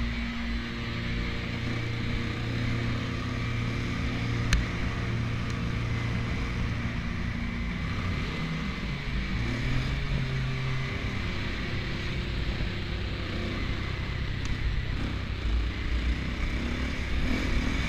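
Dirt bike engine running while the bike is ridden, its pitch holding mostly steady and shifting now and then with the throttle. There is one sharp click about four and a half seconds in.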